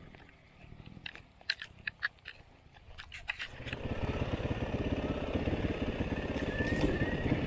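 Dirt bike engine quiet at first, with a few sharp clicks between about one and a half and three and a half seconds in. From about four seconds in, the engine runs under throttle with a rapid, even pulse and grows louder.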